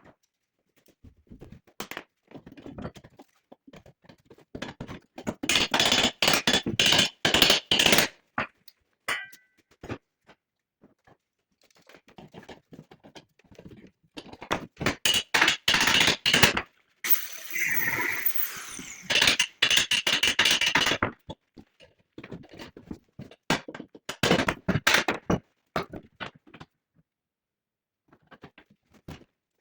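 Hand metalwork on sheet metal: runs of rapid sharp knocks and clinks, with quiet pauses between them, and a couple of seconds of continuous scraping noise about halfway through.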